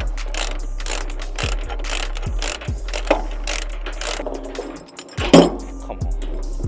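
Steel tie-down chains and ratchet binders rattling and ratcheting over a steady low diesel hum as a heavy load is unchained from a trailer. The clicks and clanks come about one to two a second, with one loud clang about five seconds in.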